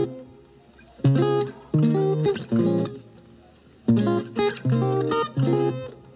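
Background music of plucked guitar, playing short melodic phrases that twice drop away for about a second.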